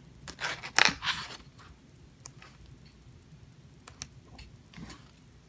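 Paper pages of a coloring book being flipped by hand: a quick run of rustling page turns, loudest about a second in, then a few faint paper ticks.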